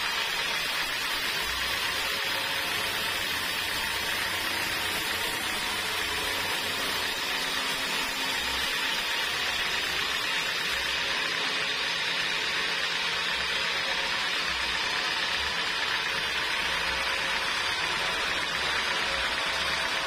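Band sawmill blade cutting lengthwise through a jackfruit-wood log: a steady rushing, hissing noise that holds at one level throughout, with a faint hum underneath.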